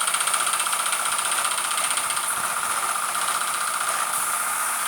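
Paint-shop compressed-air equipment running during car spray painting: a steady hiss over a fast, even machine pulse.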